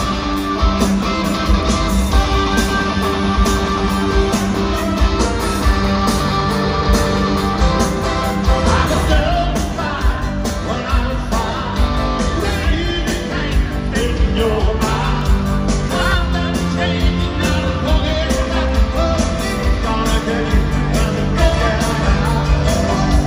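Live rock band playing an uptempo rock song: drums, electric guitars and grand piano, with a male lead vocal coming in about nine seconds in, heard from the arena seats through the amplified PA.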